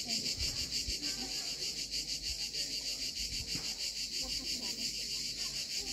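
A dense chorus of insects: a steady, high buzz with a fast, even pulse.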